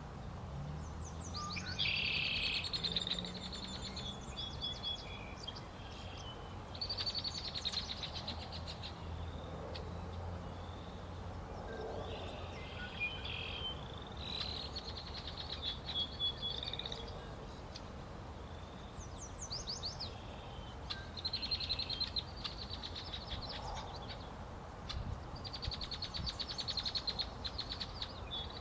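Songbirds singing, high trilled and buzzy songs repeated every few seconds, over a steady low rumble.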